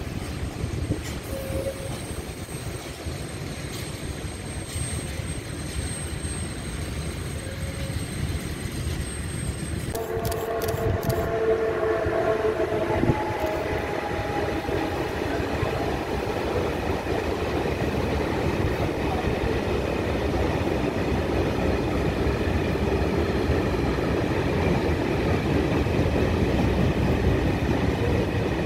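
Electric-hauled freight trains rolling past on the tracks with a steady rumble and wheel noise. About ten seconds in the sound switches abruptly to a second, louder train passing close by, opening with a few seconds of sustained steady tones.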